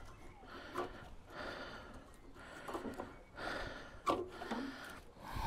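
Quiet handling sounds: faint small knocks and rustles of a lawnmower's control cable being fitted up the handle, with a man's breathing. The engine is not running.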